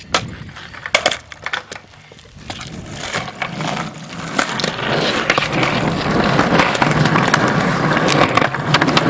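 A few sharp knocks of a skateboard being handled and stepped on, then skateboard wheels rolling over pavement, building from about three seconds in to a steady loud rumble.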